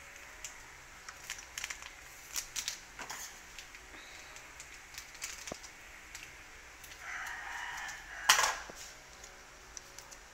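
Quiet, scattered light clicks and taps from paper sachets of stevia powder being handled and tapped out over a plastic blender jar. A short rustle comes about seven seconds in, and a sharper click just after it.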